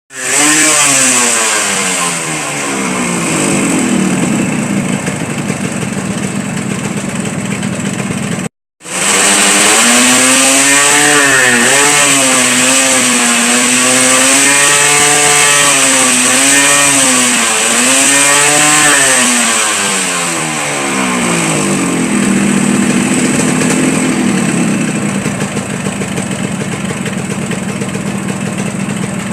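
Yamaha RX-King two-stroke single-cylinder engine with a bored-out, unbaffled exhaust, giving the wet "snoring" tone sought from this modification. It is revved in a run of short blips with a brief break about eight seconds in, then settles to a steady idle for the last several seconds.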